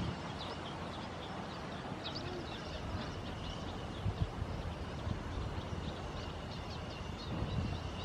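Marsh ambience of small birds chirping, with short high calls scattered throughout over a faint steady high tone. There are a couple of brief low thumps about four seconds in and near the end.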